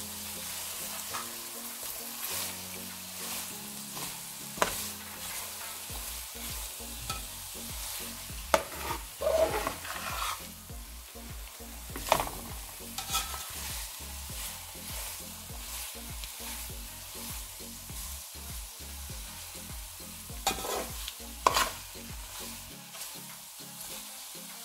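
Vegetable and paneer filling sizzling in a frying pan while a slotted steel spatula stirs it, scraping and knocking against the pan now and then.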